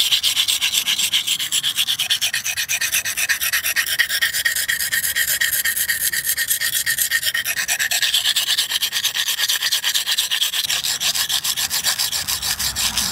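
Steel knife blade rasping back and forth in quick, even strokes across the coarse side of a wet whetstone, grinding metal off to take nicks out of the edge.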